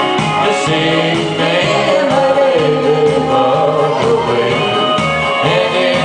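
A song performed live: singing into a microphone over amplified music with a steady, repeating bass beat.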